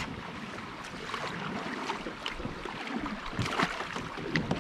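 Kayak paddle strokes in shallow river water: the blades dip and splash, with many small irregular splashes and drips.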